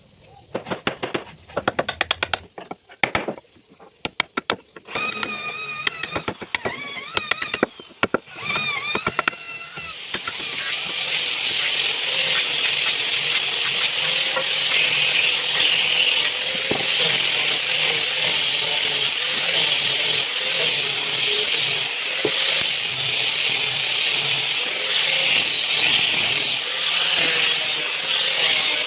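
Scattered clicks and knocks, then about ten seconds in a drum sander starts sanding wood: a loud, steady rasping hiss that carries on to the end.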